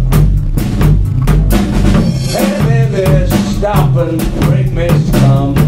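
A blues-rock boogie band playing live: electric guitar, bass guitar and a drum kit keeping a steady, quick beat. From about two seconds in, the electric guitar plays bending lead lines over the rhythm.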